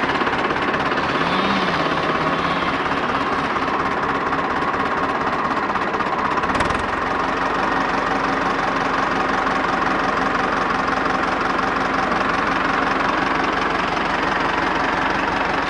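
Fendt Farmer tractor's diesel engine running steadily. About six and a half seconds in there is a clunk, and a steady hum joins the engine note as the front-loader hydraulics raise the loader.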